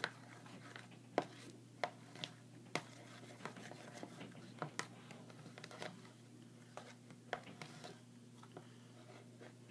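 A stick stirring a thick glue-and-shaving-foam slime mixture in a plastic bowl: irregular light clicks and taps as it knocks the bowl, over a steady low background hum.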